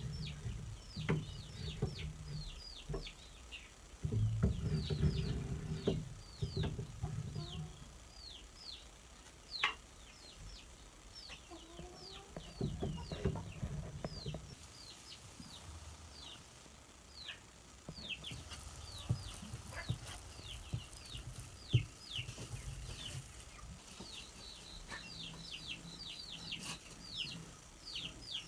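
Chickens: many short, high, falling peeps throughout, with bursts of lower clucking near the start and again about 4 to 6 and 12 to 14 seconds in.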